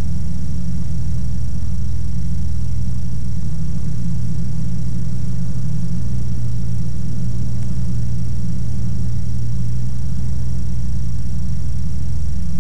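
Ikarus C42 microlight's engine and propeller running steadily, heard from inside the cockpit as a constant low drone.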